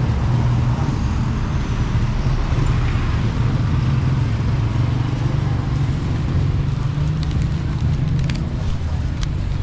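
Steady street traffic noise with a constant low rumble, and a few sharp clicks near the end.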